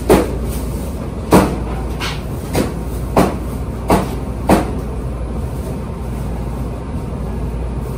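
A cleaver chopping roast meat on a chopping block: six sharp chops at uneven spacing over the first five seconds or so, over the steady hum of the store.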